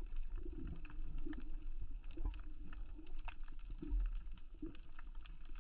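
Muffled underwater ambience picked up by a submerged camera: a steady low rumble with scattered faint clicks and pops throughout.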